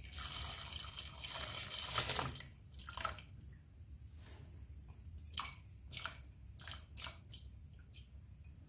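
Raw rice poured from a bowl into milk in a pressure cooker: a rush of grains pattering into the liquid for about two seconds, then a few separate small drops and taps as the last grains are shaken out.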